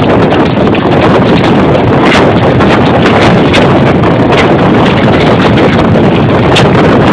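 Storm-force wind buffeting the microphone on a sailboat, a loud, steady roar with a few brief sharp crackles.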